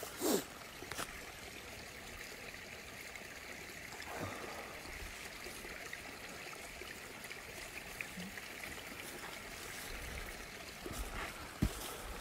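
Water from the well's spring trickling steadily. A short knock comes just after the start, and a few faint clicks are heard later.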